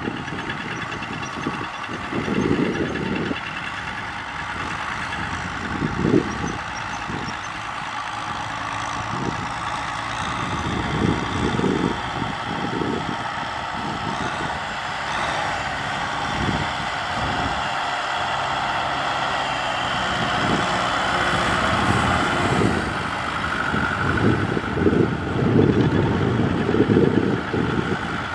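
Kubota M6040SU tractor's diesel engine running steadily as it pulls a rotary tiller through the field. Gusts of wind hit the microphone again and again, strongest near the end.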